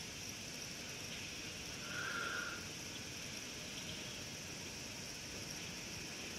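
Steady high-pitched chorus of insects trilling in the bush, with a brief louder note about two seconds in.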